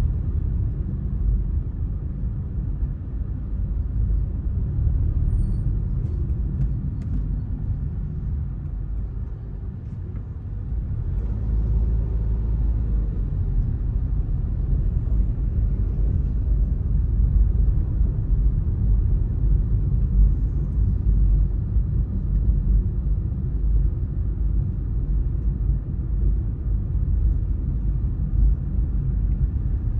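Low, steady rumble of a car driving slowly through city traffic, from road and engine noise. It dips about ten seconds in, then builds again as the car picks up speed.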